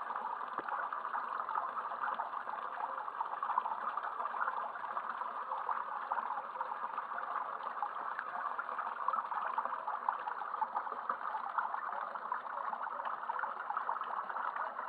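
Steady trickling of running water, an even crackly wash with no change.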